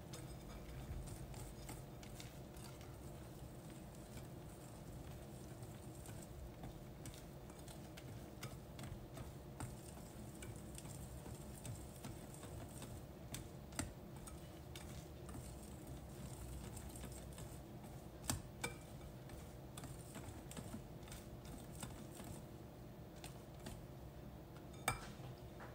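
Wire whisk beating pancake batter in a glass bowl: faint, quick ticks of the wires against the glass, with a few louder clinks.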